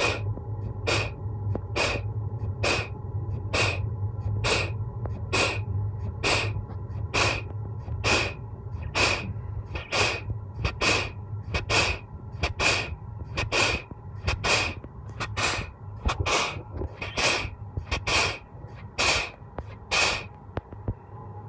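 MAN truck's pneumatic-hydraulic clutch booster venting air in short hisses, about one a second and more than twenty in a row, as the clutch is pumped to bleed it. A steady low hum runs underneath.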